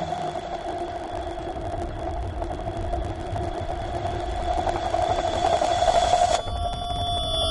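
Electronic sound: a steady noisy drone with a few held tones, slowly growing louder, that cuts abruptly about six seconds in to a cluster of clean, stacked synthesizer-like tones.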